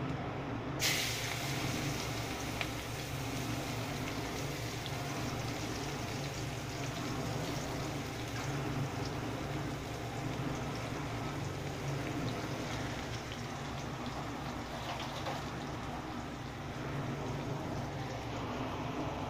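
Sliced onions tipped into hot oil in a wok about a second in, setting off a steady sizzle of frying, over a low steady hum.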